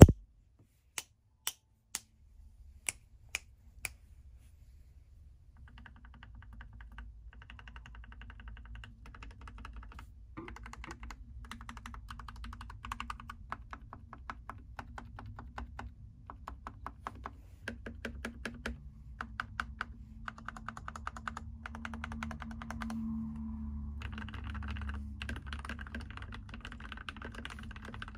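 Typing on a Keychron mechanical keyboard with lubed red linear switches. A few separate sharp clicks come in the first four seconds, then steady, fast typing runs from about six seconds on.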